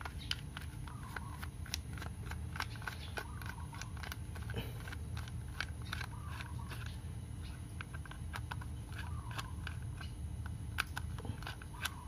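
Small precision screwdriver working a screw inside the plastic battery compartment of a Logitech M235 wireless mouse: irregular sharp ticks and light scrapes of the metal tip against the screw and plastic, with the plastic shell being handled.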